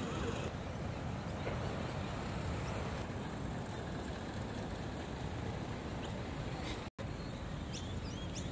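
Steady low rumbling outdoor noise that cuts out for an instant about seven seconds in, with a few short high chirps near the end.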